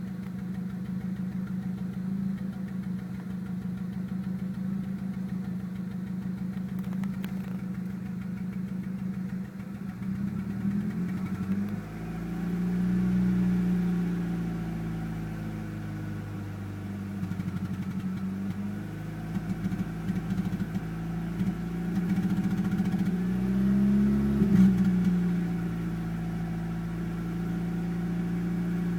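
Volkswagen AZH 2.0-litre four-cylinder engine running with a misfire: it idles steadily for about ten seconds, then is revved up and back down several times.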